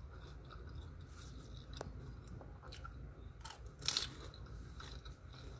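Crisp fried lumpiang shanghai (pork spring roll) being bitten and chewed: scattered small crackles, with one loud crunch about four seconds in, over a low steady hum.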